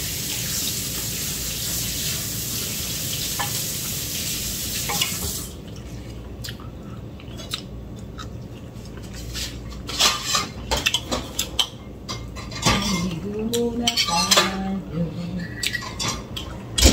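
Spoon and fork clinking and scraping on a ceramic plate during a meal, as scattered sharp clicks that thicken in the second half. For the first five seconds or so a steady hiss runs underneath, then cuts off suddenly.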